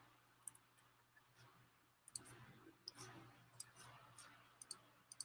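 Near silence broken by about half a dozen faint, scattered clicks of a computer mouse.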